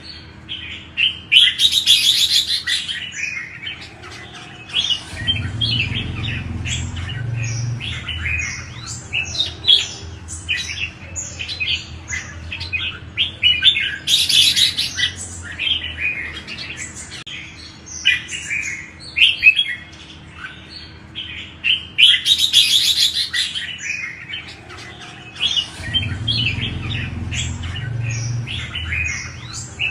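Red-whiskered bulbuls singing: a steady run of short, bright chirping phrases, with a denser, louder burst of song three times. A low rumble sits under the song twice.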